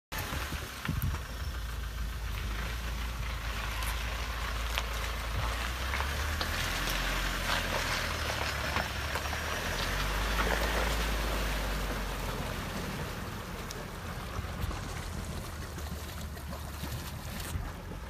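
Mahindra Scorpio SUV wading through a river: a low engine rumble under rushing, splashing water, swelling about halfway through and easing off toward the end.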